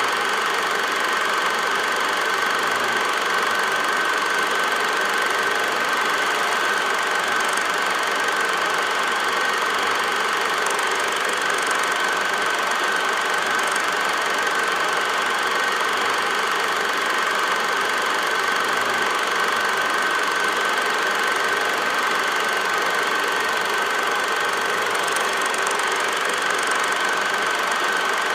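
8mm film projector running: a steady mechanical whir with a constant high-pitched hum, unchanging throughout. It is not the passing train; the film itself has no sound.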